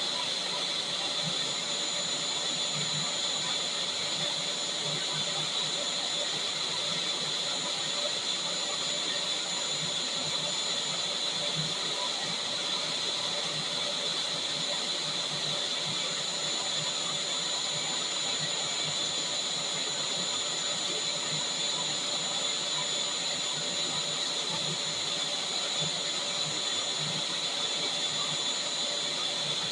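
Vacuum cleaner running steadily, a constant airy rush of motor and suction with a high whine on top.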